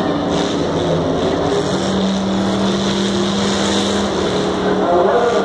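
Demolition derby cars' engines running over a steady loud din, their engine notes holding one pitch for a second or two before shifting.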